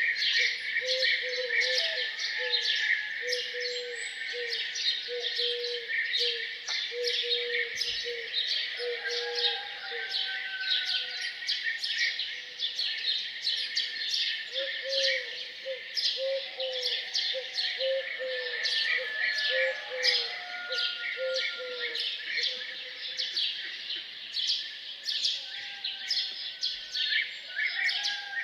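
A dense chorus of small songbirds chirping and twittering without pause. Under it, a low call repeats in quick runs of notes, once in the first several seconds and again in the middle.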